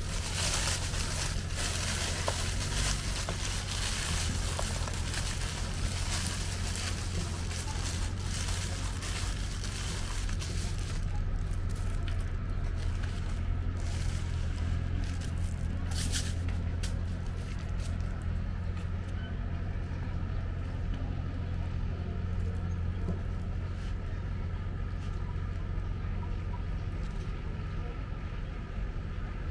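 Thin plastic bag crinkling and rustling as it is pulled open around a foam takeaway box, most of it in the first several seconds, with a few light clicks later. A steady low hum of street traffic runs underneath.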